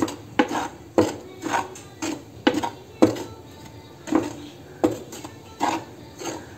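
A utensil stirring dry rice flour in a pan as it roasts, knocking and scraping against the pan in short strokes about every half second, some gaps longer.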